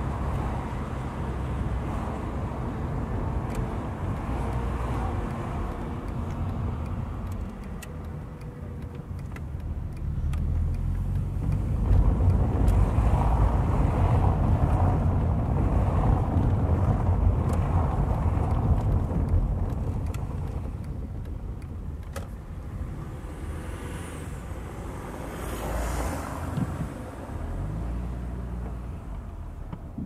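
Car engine and tyre noise while driving slowly: a steady low rumble that grows louder for several seconds about a third of the way in, while the car runs on cobblestones, then eases off as the car slows.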